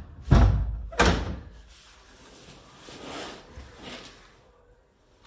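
Wooden double door banging twice in quick succession, then softer rustling of a cloth curtain being pulled across it.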